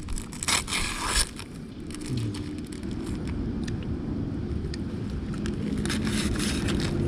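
Clear plastic sandwich wrapper crinkling in two short spells, about half a second in and again around six seconds in, as the sandwich is handled and eaten. Under it a steady low rumble grows slowly louder.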